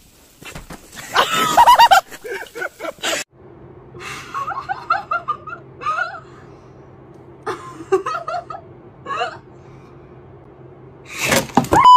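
A woman laughing and giggling in short bursts over a steady low hum, after a loud vocal outburst about a second in and before another loud outburst near the end.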